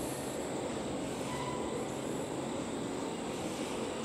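Double-stack intermodal freight cars rolling across a steel girder bridge: a steady noise of wheels on rail.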